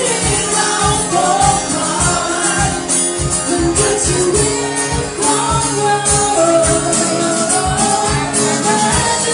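A live band playing a pop song, a singer's voice carrying the melody over the instruments and a steady beat.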